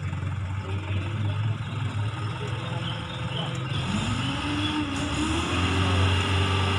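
Light dump truck's engine working hard under load on a slick clay track; the revs climb about four seconds in, hold, and drop back near the end as the rear wheels spin in the mud.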